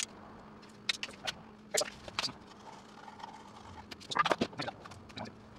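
Handling noises: scattered clicks and knocks as a tape measure and a loose speaker driver are handled on a wooden speaker box, with a denser run of knocks about four seconds in.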